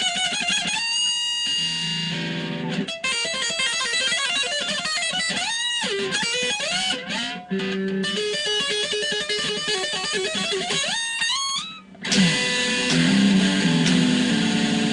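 Electric guitar played solo, with wide string bends that slide the pitch upward and vibrato on held notes, a whammy-bar-like effect done by bending the string by hand. About twelve seconds in it cuts out briefly and switches to lower, heavier notes.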